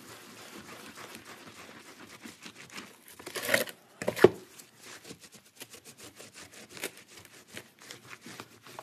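Dry paper towels rubbing and crinkling over grouted glass mosaic tiles, buffing off the grout haze in quick scratchy strokes, with two louder swipes about three and a half and four seconds in.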